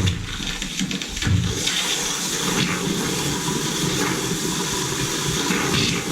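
Water rushing into a water heater tank as it refills, with the air inside being pushed out. There is a brief low thump a little over a second in.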